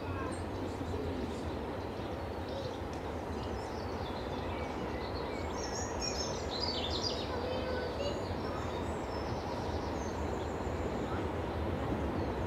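Birds singing and chirping over a steady low rumble from a distant diesel locomotive on approach, which grows slightly louder near the end.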